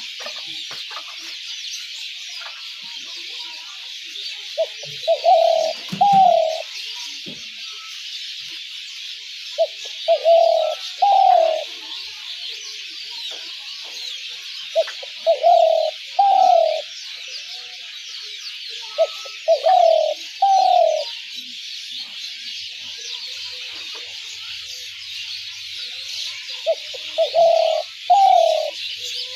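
Spotted dove calling: five cooing phrases about five seconds apart, each a short lead-in note followed by two longer coos, the last one falling in pitch. A steady high-pitched hiss runs underneath.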